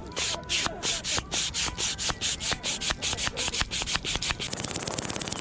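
Bicycle hand pump being worked quickly to inflate a mountain-bike tyre, each stroke a short hiss of air, about four to five strokes a second. About four and a half seconds in, the strokes give way to a faster, steadier run of hiss and clicks.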